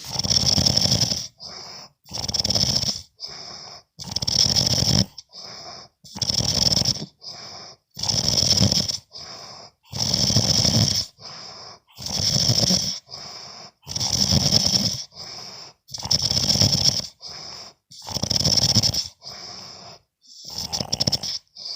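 Steady snoring from a sleeper. Each cycle is a long, loud, rasping snore followed by a shorter, quieter one, repeating about every two seconds.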